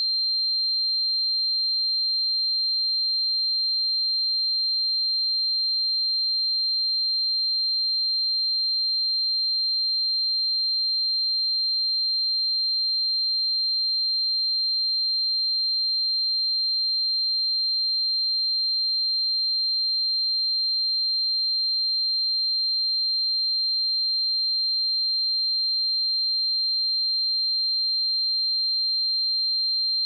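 A pure 4162 Hz sine-wave test tone: one high, steady pitch held at a constant level.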